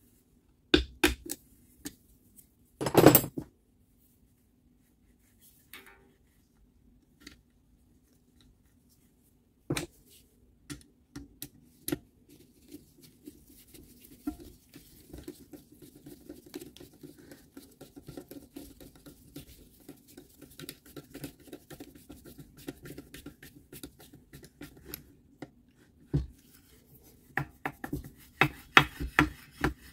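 Pliers and small metal parts clicking and clinking against a Milwaukee M18 circular saw's blade-guard housing and spindle, with a loud clatter about three seconds in. Then a long stretch of faint scraping and rubbing, and a quick run of clicks near the end.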